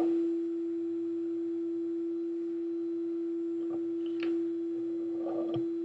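A steady single-pitched hum runs throughout, with a few faint light clicks in the second half as the hand arbor press is worked.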